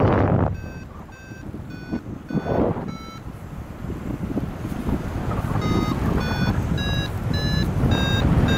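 Paragliding variometer beeping in short pitched beeps, about two a second, the audio signal that the glider is climbing in lift. The beeps pause for a couple of seconds in the middle, then return and rise slightly in pitch. Air rushes over the microphone throughout, loudest at the start.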